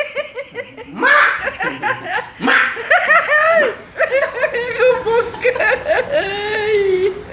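People laughing loudly in repeated bursts, with excited voices mixed in.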